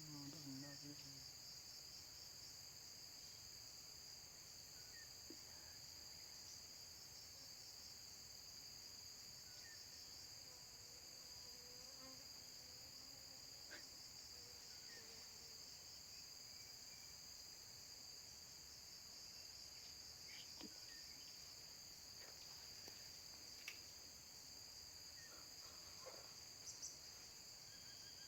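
Faint, steady high-pitched insect drone, with a few brief faint chirps and ticks scattered through it.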